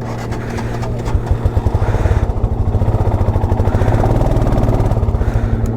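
Motorcycle engine running with a fast, thumping exhaust beat that grows louder over the first few seconds.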